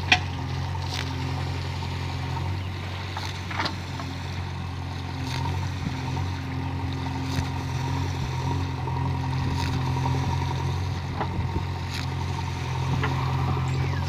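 JCB 3DX backhoe loader's diesel engine running steadily while the backhoe digs and swings soil, with a handful of short sharp knocks.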